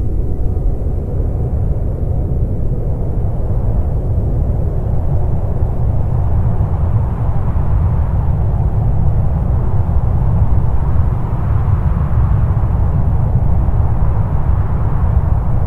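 Dark ambient drone from a lo-fi black/doom metal demo recording: a dense, steady wall of low rumbling noise with no beat or clear melody, its mid-range growing a little brighter past the middle.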